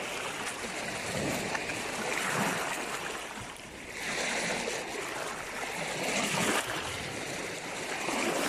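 Small waves lapping and washing over a pebble shore in shallow water, swelling and easing several times.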